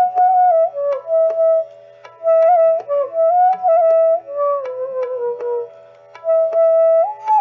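Flute playing a slow, ornamented melody with bends between notes, over a steady held drone, with light percussion strokes keeping a Deepchandi rhythm. The melody pauses briefly about two seconds in and again near six seconds.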